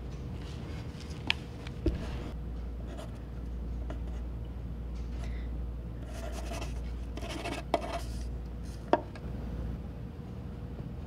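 Pencil scratching on paper in short spells of writing, with a few sharp clicks in between, over a steady low room hum.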